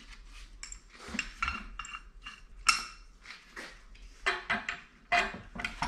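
Steel tools and hardware (a nut, a bolt and a ball joint press) clinking and clattering as they are picked up and handled. It is a string of irregular sharp metallic clinks, each with a short ring, and the loudest comes a little under three seconds in.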